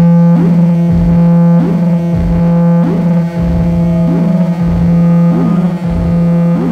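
Soma Lyra-8 synthesizer with a Gecko Loopsynth, played live: a steady low drone with several steady tones above it, crossed by a falling, swooping pitch that repeats a little under twice a second, over a layer of noise.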